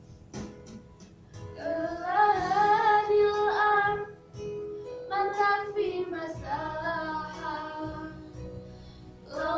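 Children singing a nasheed together, girls' voices leading, over an electronic keyboard accompaniment. Two sung phrases, the first entering about a second and a half in, with a short break between them.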